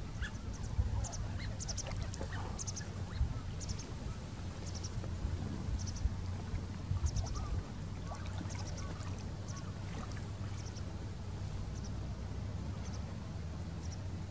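Waterfowl calling on the lake: a few lower calls in the first few seconds, then short high chirps repeating every second or so, over a steady low rumble.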